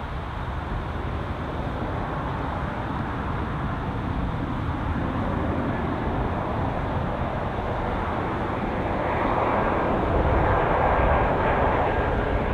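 Jet airliner engine noise: a steady rushing roar that grows louder over the last few seconds as the aircraft passes close by.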